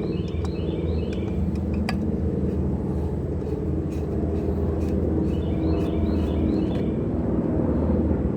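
Aircraft flying over in formation, a steady low engine drone.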